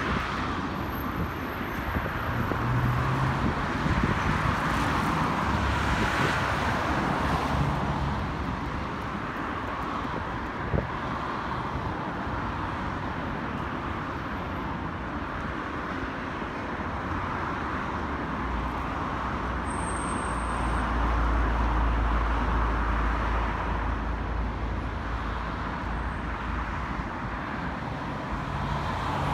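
Steady city road traffic: cars passing on a street, with the sound swelling as a louder vehicle with a low rumble goes by about two-thirds of the way through.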